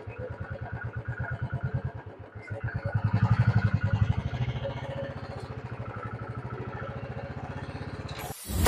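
Motorcycle engine running with a fast, even low pulse, revved up briefly about three seconds in, then settling back to a steady idle.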